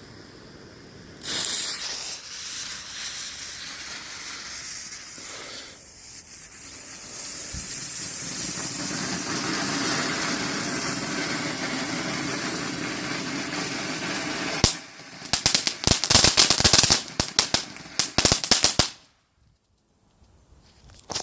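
Youth-category fountain firework spraying sparks with a steady hiss that builds up, then switching to a rapid run of sharp crackles and pops for about four seconds before it burns out.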